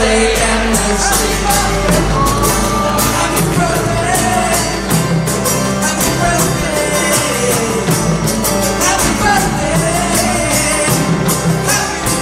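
Live band music: voices singing over strummed acoustic guitar, percussion and a bass line, with a steady beat.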